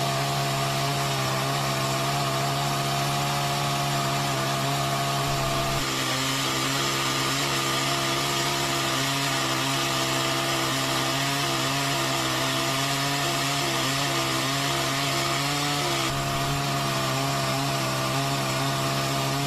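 Chainsaw engine running steadily at cutting speed as the chain works through a log, its tone holding constant, with a slight change in texture about six seconds in and again near sixteen seconds.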